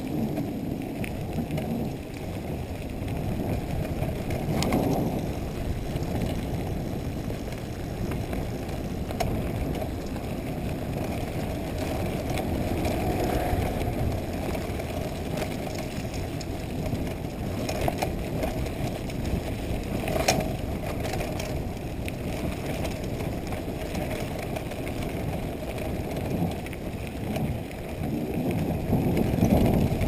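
Corratec mountain bike rolling along a gravel road, heard from a handlebar-mounted camera: a steady rumble and rattle of the tyres and frame over the loose surface, with a few sharper knocks from bumps.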